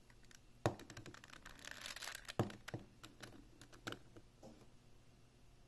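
A hard plastic Alpha V 3x3 speedcube being twisted and pried apart, its pieces popping out of the mechanism. There are several sharp plastic clicks and clacks with a scratchy rubbing between them, and it goes quieter for the last second or two.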